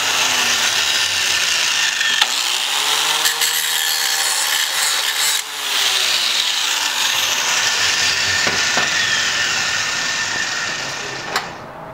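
Electric angle grinder running against a steel shock tab held in a vise, grinding off the rough edges left from cutting. It runs continuously, with a short dip about five and a half seconds in, and fades near the end.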